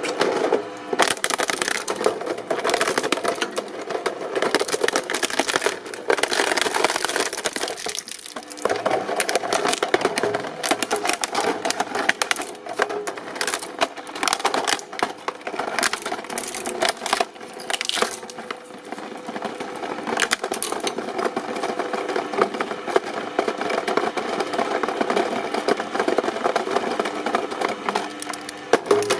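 Press machine crushing an object: dense crackling and snapping over a faint steady machine hum, with a short lull about eight seconds in.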